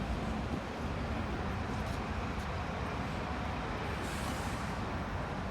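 Steady city street noise dominated by a low traffic rumble, with a brief hiss about four seconds in.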